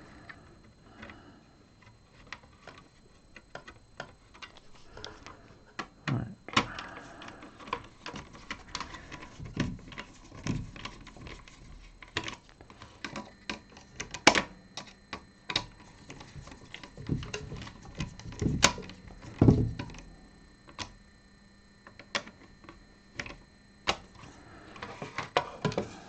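Irregular small clicks, taps and knocks of screws being driven in by hand with a screwdriver and the radio's case parts being handled, with a few louder knocks.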